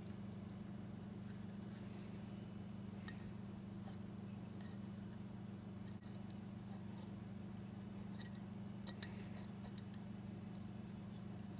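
Faint crackle and hiss of flux-core solder melting onto the tube-base pins under a soldering iron, coming in short spurts, over a steady low hum.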